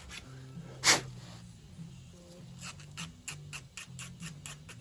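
Background music with a low, stepping bass line. About a second in there is one sharp knock, and near the end a quick run of light clicks as a brass fitting of the pump is handled and worked.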